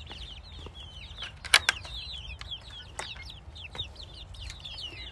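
Young chicks peeping steadily in quick, high, downward-slurred cheeps, with a few sharp knocks and rattles of the wooden, wire-mesh pen door being handled, the loudest about one and a half seconds in.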